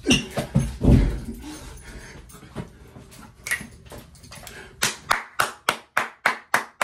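Two heavy thumps in the first second, then rapid rhythmic hand clapping from about five seconds in, about four claps a second.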